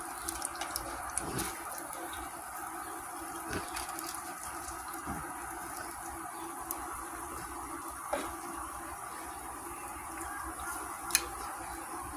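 Chicken frying in oil, a steady sizzle with a few short sharp pops and clicks.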